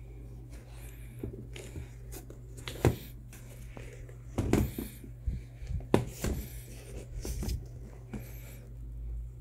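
Handling noise from a knit sneaker being picked up and turned over in the hand: irregular rustles and a few sharp clicks or taps, over a steady low hum.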